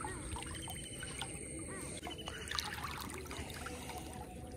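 Water sloshing and swishing around a person wading waist-deep through a muddy backwater channel, a steady low wash with small splashes.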